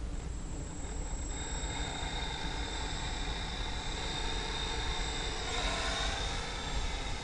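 Radio-control model airplane's electric motor and propeller spooling up to a steady high whine about a second in. About five and a half seconds in, the plane is hand-launched and flies off, and the sound swells into a rushing propeller noise that shifts in pitch.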